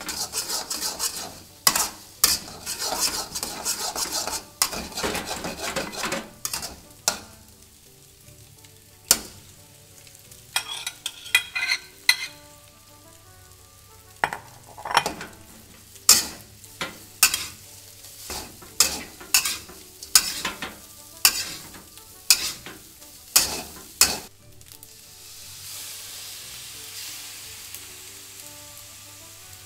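Metal spatula scraping and knocking against a metal wok while stir-frying egg and vegetables in sizzling oil, with many sharp strikes. After a quieter stretch the strikes resume as rice is worked in, and near the end the stirring stops, leaving a steady sizzle.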